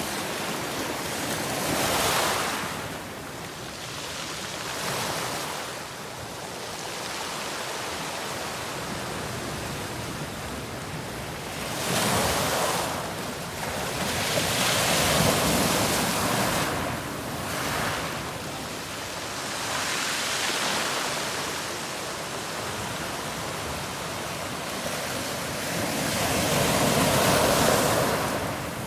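Ocean waves breaking and washing ashore, a steady surf wash with several louder surges as waves come in, and some wind on the microphone.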